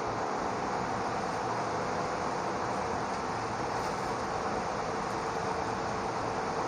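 Steady rushing background noise with a faint hum underneath, holding at an even level.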